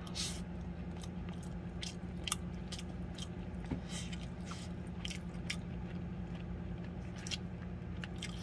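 Close-up eating sounds: chewing and biting of rice and konjac noodles, with scattered short clicks and scrapes of a plastic spoon against a plastic meal tray. A steady low hum sits underneath.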